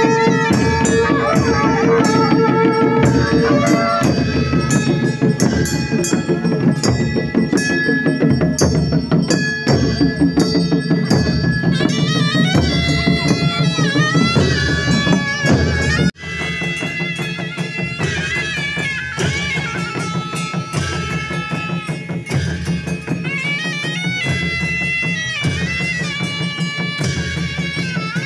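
Traditional Himachali deity-procession music: drums beating under a wavering, ornamented reed-pipe melody, with a long held note at the start. The sound drops suddenly about sixteen seconds in and carries on a little quieter.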